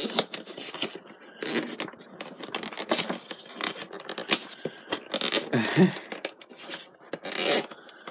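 Packing tape being cut and a sealed cardboard action-figure box being worked open, with irregular scratching, scraping and tearing of cardboard.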